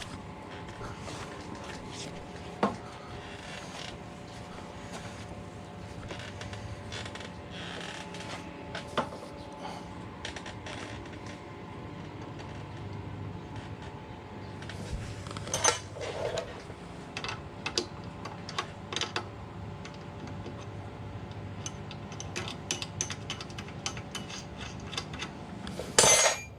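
Scattered metallic clicks, clinks and knocks of hand tools working on a motorcycle's front drum brake, with a few louder knocks, over a steady faint hum.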